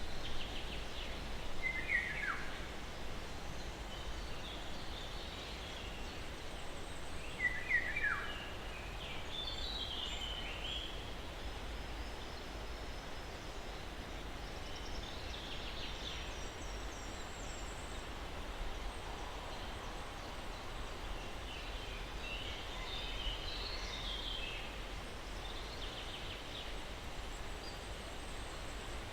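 Steady breeze hiss through pine trees, with a low rumble beneath, and scattered bird calls: two sharp down-slurred calls early on and about eight seconds in, then short clusters of chirps every few seconds.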